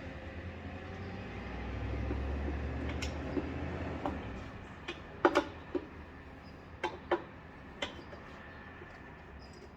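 Manual tire-changing work on a motorcycle wheel. A low rumble for the first few seconds, then a string of about seven sharp metal clicks and knocks as the tools and clamp are worked against the rim and tire.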